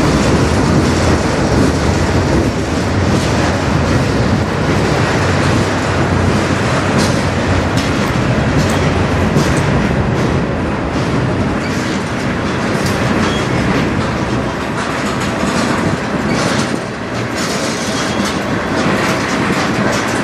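Manifest freight train's cars rolling slowly past, a steady rumble of steel wheels on rail with scattered clicks over the rail joints.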